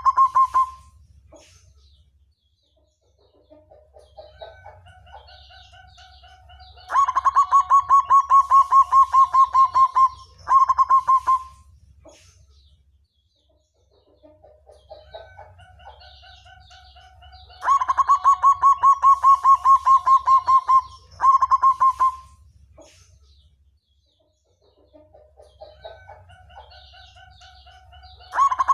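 Zebra dove (black perkutut) singing its cooing song, the same phrase about every ten to eleven seconds: soft lead-in notes, then a loud, fast-pulsed coo for about three seconds, and a short final coo. Near the end a new phrase begins its loud part. A faint low hum runs underneath.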